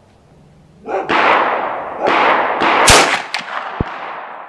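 Marlin Model 1895 lever-action rifle in .45-70 Government firing. The loudest, sharpest report comes about three seconds in, among several other gunshot reports with long, echoing tails.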